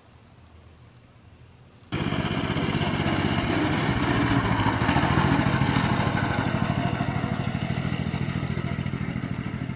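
Mini bike's small engine running as it rides, cutting in abruptly about two seconds in and slowly fading as the bike moves away. Before it, crickets chirp faintly.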